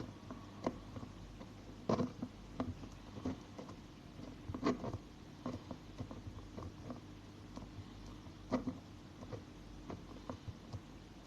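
Scattered light taps and clicks, irregular and a few seconds apart, from hands working Play-Doh and its tools on a tabletop.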